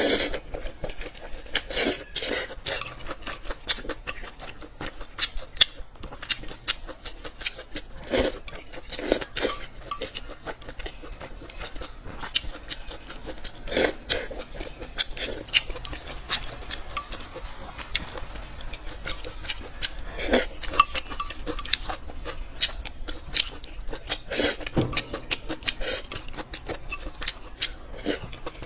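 Close-miked eating sounds: chewing and wet mouth clicks in a dense, irregular patter, with now and then a clink of cutlery against a dish.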